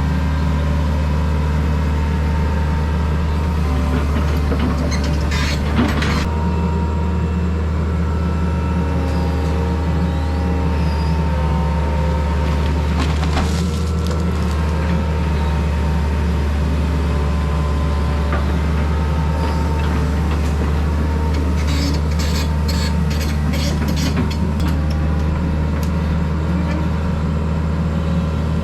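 An engine running steadily at one speed, with a few knocks and a short run of rapid clicks about three-quarters of the way through.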